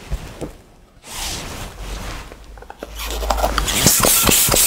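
Hand pump inflating a long twisting balloon: a rushing hiss of pumped air starts about a second in and grows louder near the end, with short rubbing and squeaking noises of the rubber and pump.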